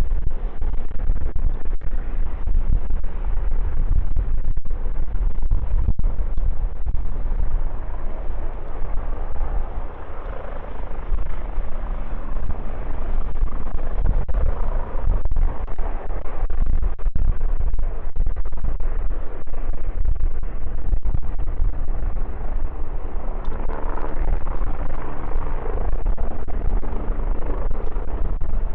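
Strong wind buffeting the microphone with heavy distortion, over the steady running of jet aircraft engines at the runway, their tones growing clearer in the second half.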